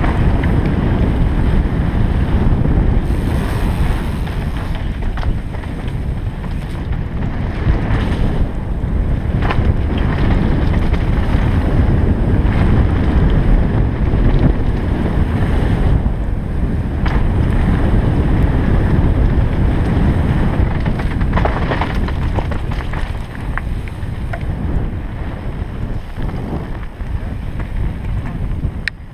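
Wind buffeting the microphone while riding a mountain bike fast downhill, over a steady low rumble of tyres on a gravel trail, with scattered knocks and rattles as the bike goes over rough ground.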